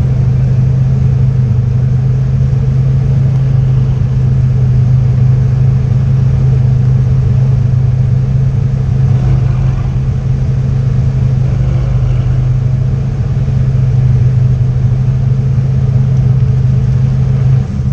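Lamborghini Gallardo V10 idling steadily: a loud, even low drone with no revving.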